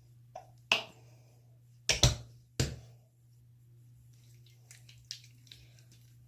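A person hiccuping: a few sharp, sudden hics in the first three seconds, two of them almost together about two seconds in, the loudest ones.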